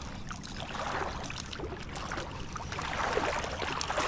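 Shallow water sloshing and splashing in uneven swells as a hooked whiting is brought in across the flats.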